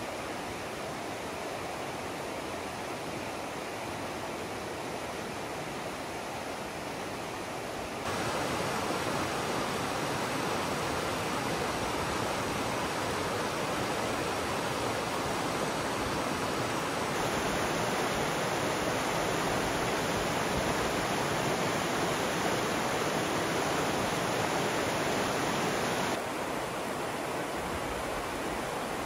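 Fast, shallow mountain river rushing over rocks: a steady rush of water that steps up louder about a quarter of the way in and drops back near the end.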